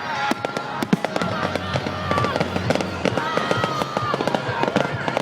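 Aerial fireworks going off in quick succession: a dense run of sharp cracks and bangs throughout.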